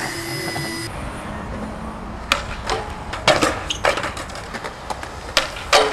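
Skateboard clacking and knocking on concrete steps: several sharp hits, the loudest about three seconds in and near the end, over a low steady rumble.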